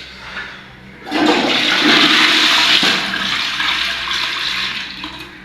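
Toilet flushing: a sudden rush of water about a second in that gradually eases off, a test flush of newly installed plumbing to check the water pressure.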